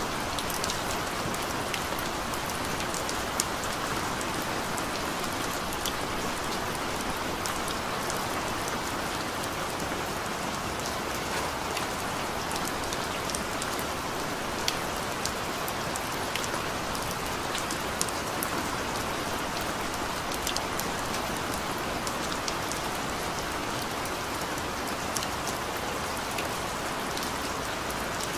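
Steady rain falling, an even hiss with scattered sharper drop hits close by.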